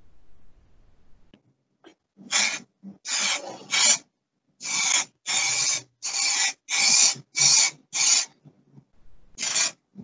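Aerosol spray can of peelable rust-protection coating spraying in about ten short hissing bursts, with a pause before the last one.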